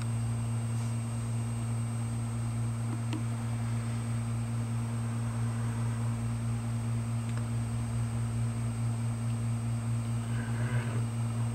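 Steady low hum and fan noise of running computer and data-recovery equipment, with the head-swapped Western Digital hard drive spinning, not clicking, and a faint steady high whine. A couple of faint ticks.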